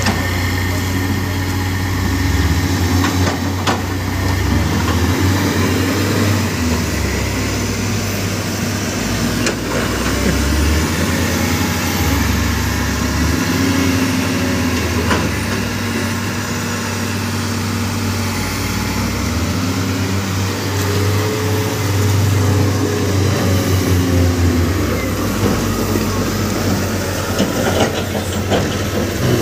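Diesel engines of a tracked excavator and a wheel loader running under load with a steady low drone, with a few sharp knocks along the way.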